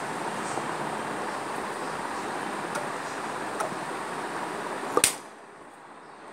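Steady hiss of room background noise, with one sharp click about five seconds in, after which the background briefly drops quieter.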